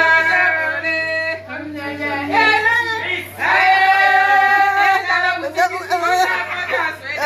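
A voice singing in long held notes that slide and waver in pitch.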